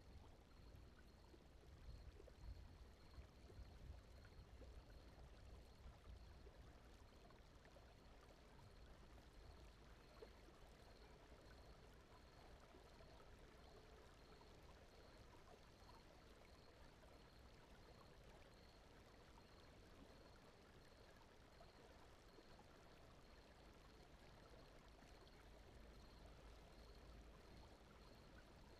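Very quiet, steady rushing noise like a gentle flowing stream, laid as a sleep ambience bed, with a faint high pulse repeating a little over once a second.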